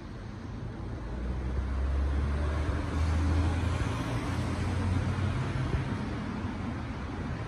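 Low rumble of passing road traffic that swells about two seconds in and eases off near the end.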